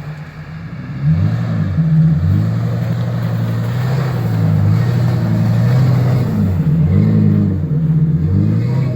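Ford Excursion's V10 engine with a Flowmaster exhaust revving, its pitch climbing and dropping several times as the truck is driven hard through snow.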